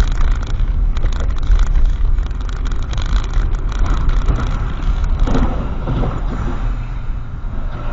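Steady rumble and hiss of a car driving on a wet road, heard from inside the cabin through a dashcam's microphone.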